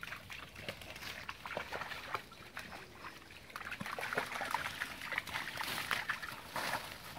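Springer spaniels splashing through a shallow stream, their paws slapping the water in quick, irregular splashes that grow louder in the second half.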